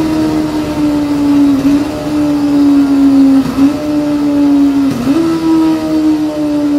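Honda CB400 Super Bol d'Or's 400 cc inline-four running at high revs, around 10,000 rpm, as the bike slows. Its steady high note sags slowly, then dips and jumps back up three times as the rider downshifts from sixth to third.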